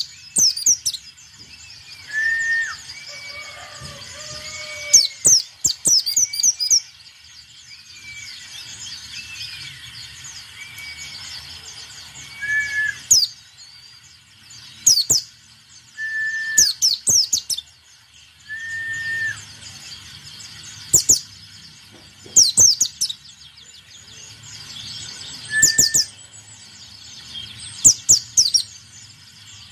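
White-eye (pleci) singing in repeated short bursts of fast, high twittering notes every few seconds. Short, steady whistled notes at a lower pitch sound between the bursts.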